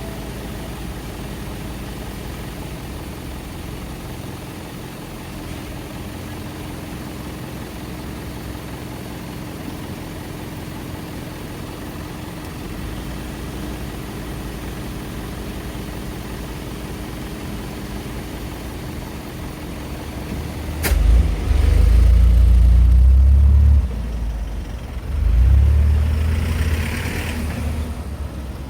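Road traffic at a street intersection, a steady hum of passing and idling cars. About three quarters of the way in a sharp click is followed by two loud, deep rumbles of a few seconds each.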